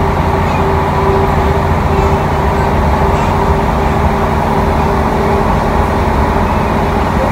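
Steady rumble of a passenger train running at speed, heard from inside the carriage, with a steady hum over the running noise.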